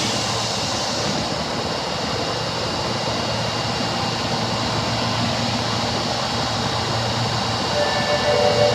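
Steady hum inside an Osaka Metro Tanimachi Line 22 series subway car (car 22619). Near the end a pulsing tone begins: the car's door chime, known for sounding abnormal.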